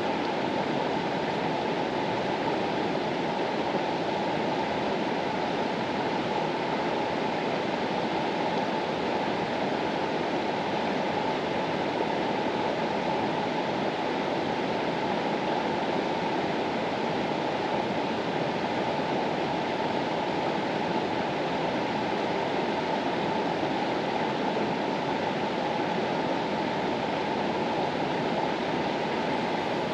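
Water of the Mastallone, a mountain river, running in a steady, unbroken rush that does not change.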